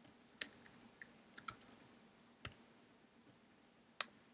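Faint, scattered computer keyboard keystrokes and mouse clicks, a few separate sharp clicks over several seconds, the loudest a mouse click near the end.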